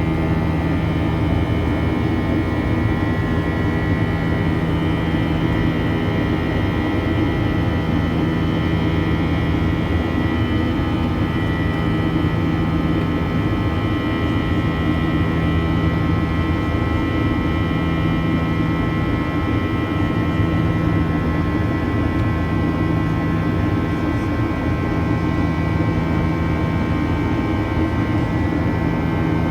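Steady drone of a Boeing 737-800's CFM56 jet engines heard from inside the cabin, with a deep rumble and several steady whining tones over it.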